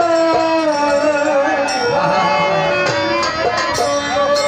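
Live Bengali Baul folk music: long held melody notes over the band, with a few sharp percussion strokes in the second half.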